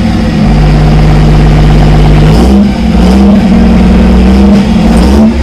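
An engine running steadily with a deep hum, its note stepping up a little about two seconds in.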